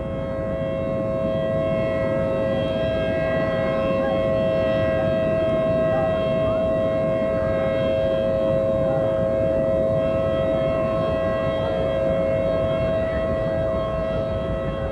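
Outdoor civil defense siren sounding a steady two-tone warning, one held chord that does not rise or fall, over a rough rushing noise. With a tornado on the ground close by, this is a tornado warning.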